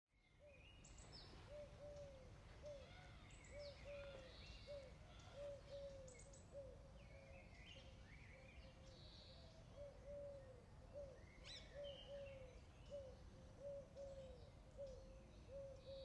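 Birds calling: one repeats a short, low, falling note about twice a second, over scattered high chirps and twitters from smaller birds and a faint low hiss of outdoor background noise.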